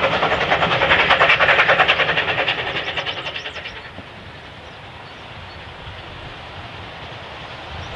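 A steam-hauled train of coaches rolling away, its wheels clicking in a rapid, even rhythm over the rail joints and fading out about four seconds in. After that, a faint steady rumble as a distant steam locomotive approaches, with a few high chirps.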